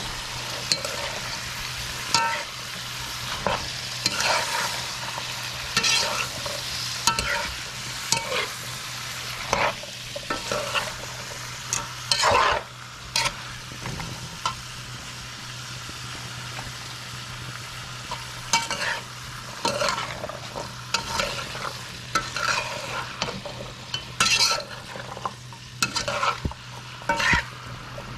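Pumpkin pieces sizzling in curried oil in a pot, with a spoon stirring and scraping against the pot in short, irregular strokes over a steady frying hiss.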